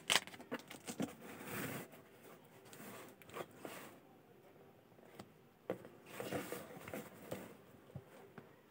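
Paper pages of a book rustling as they are turned and handled by hand: a few faint, short rustles and soft clicks with quiet gaps between them.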